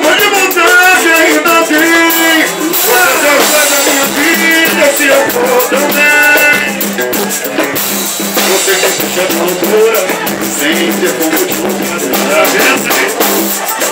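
Live band playing, with the drum kit loud and close: steady drum and cymbal hits under a melody line.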